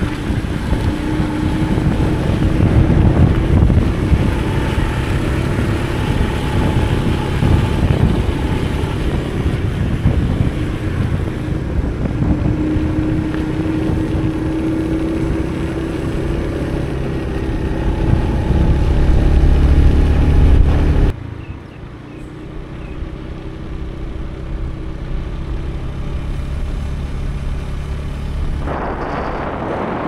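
Small motorcycle engine running while riding, with wind rumbling on the microphone; the engine note rises and falls. About two-thirds of the way through the sound drops suddenly and the engine carries on more quietly.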